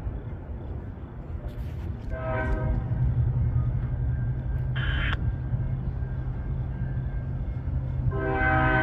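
Five-chime Nathan K5HL air horn on an NS ES40DC diesel locomotive leading an approaching freight train. It gives a short blast about two seconds in, then a long blast that starts near the end, over the steady low rumble of the locomotive's diesel.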